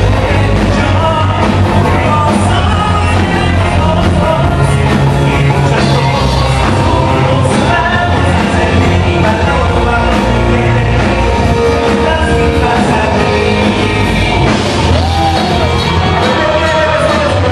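Live rock band playing loud and without a break: a male vocalist singing into a microphone over electric guitar, bass and drums.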